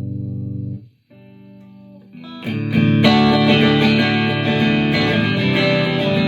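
Harley Benton JA-60CC electric guitar being played. A held chord cuts off about a second in, a few quieter notes follow, and from about two and a half seconds in it plays louder chords.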